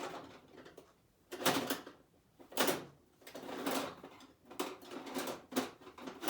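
Tools being handled and rummaged through while searching for a screwdriver: a few separate clattering knocks and scrapes with short pauses between.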